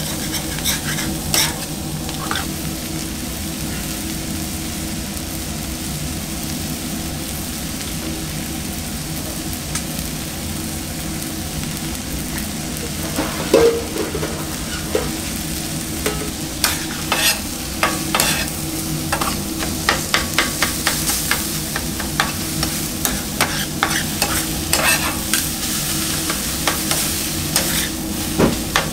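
Sliced onions sizzling on a hot flat-top griddle, with a metal spatula scraping and tapping the plate as it turns them. The spatula strokes are sparse at first and come thick and fast from about halfway on.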